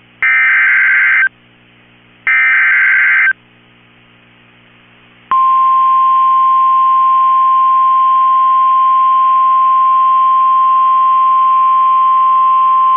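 The last two bursts of an EAS SAME digital header, each a harsh two-tone warble about a second long, two seconds apart. About two seconds later the steady single-pitch 1050 Hz NOAA Weather Radio warning alarm tone starts and holds, signalling that a warning message, here a severe thunderstorm warning, is about to be read.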